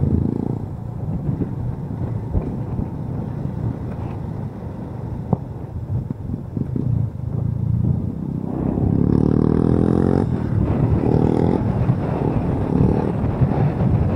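Motorcycle riding sounds: wind rumble on the microphone over the low drone of the engine. About two-thirds of the way in the engine climbs in pitch as it accelerates, in two or three pulls with short breaks between, then settles back.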